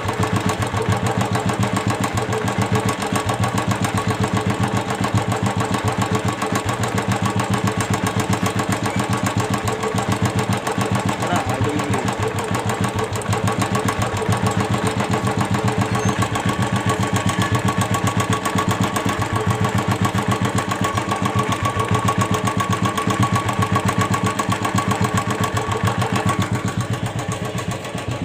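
Royal Enfield Classic 350 single-cylinder engine running steadily at an even speed with a repeated tick-tick-tick noise from inside the engine, a fault whose cause is not yet known and that is to be found by opening the engine.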